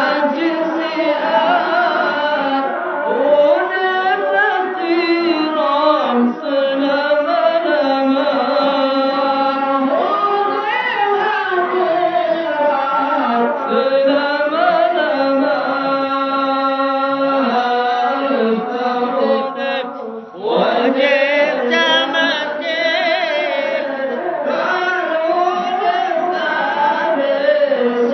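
Several voices chanting in overlapping, slowly wavering long notes, like a choir. The sound dips briefly about twenty seconds in and comes back with a rising glide.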